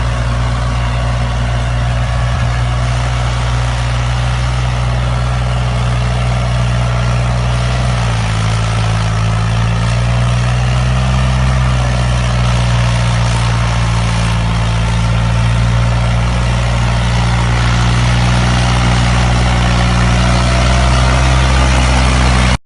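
Farm tractor's diesel engine running steadily. Its pitch steps up about eight seconds in, and it grows slightly louder toward the end.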